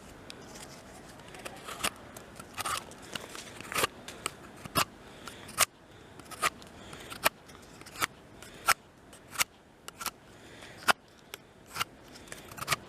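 Knife blade of a small hatchet multitool whittling old rotten wood: a run of short, sharp cutting strokes, about one a second.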